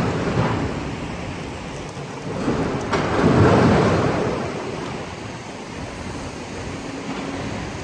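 Road traffic passing on a wet road: a rushing tyre noise that swells as each vehicle goes by, loudest about three to four seconds in, with a single sharp knock just before that swell.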